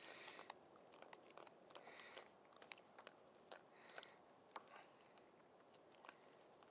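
Faint handling noises: scattered light clicks and taps, with a couple of short rustles near the start and about two seconds in.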